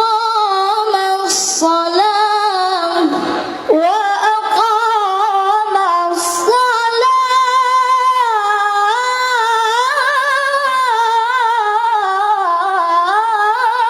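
Unaccompanied melodic Quran recitation (tilawah) in a high voice, drawing out long ornamented notes with wavering melismas, with a brief break for breath just under four seconds in.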